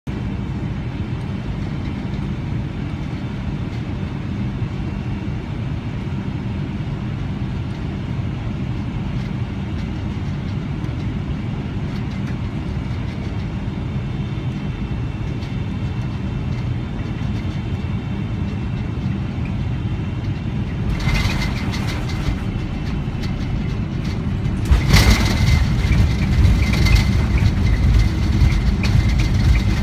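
Cabin noise inside a Boeing 777-300ER airliner landing: a steady drone on final approach, then about two-thirds in the noise rises at touchdown with a thin steady whine. A few seconds later it becomes a much louder rumble as the jet rolls out on the runway under reverse thrust and braking.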